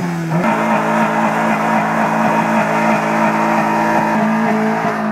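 Honda Civic's single-cam four-cylinder engine held at steady high revs while the front tyre spins on the asphalt in a burnout.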